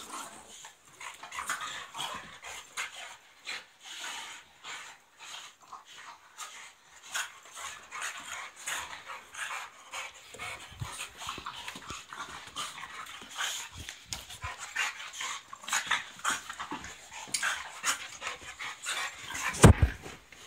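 Two dogs, a boxer and a French Bulldog, play-wrestling: panting and scuffling in quick, irregular bursts, with one loud thump near the end.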